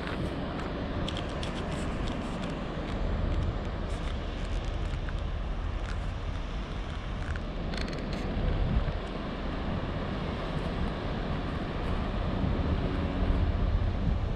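Wind buffeting the microphone outdoors: a steady gusting rumble over a wash of open-air noise, with a few faint brief ticks.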